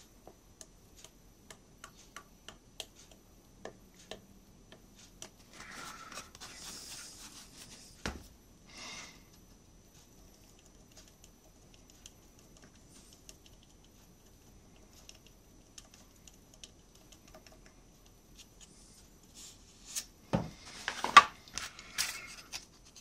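Quiet handling of small laser-cut MDF parts on a wooden board: a soft spluttering hiss as the glue bottle is squeezed, one sharp click about eight seconds in, then several taps and knocks of the wooden pieces in the last few seconds, the loudest near the end. A faint even ticking runs underneath.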